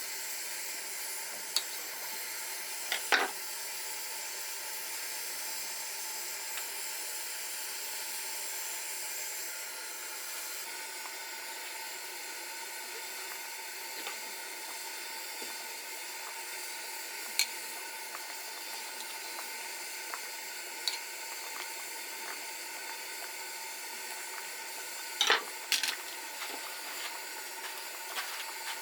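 Food sizzling in a pan as a steady hiss, with a few sharp clinks from utensils: twice in the first few seconds, a couple in the middle and a cluster near the end.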